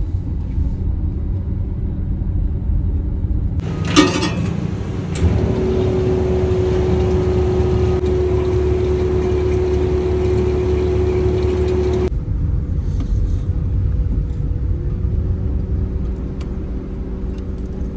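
Steady engine and road rumble inside a moving car. About four seconds in there is a click, then a steady hum with a hiss over it for about seven seconds, which cuts off suddenly.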